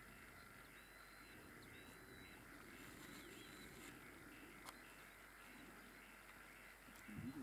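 Faint outdoor ambience with short, high whistled bird calls repeating about once a second, a few of them dipping and rising in pitch. A small click about halfway through and a brief low noise near the end.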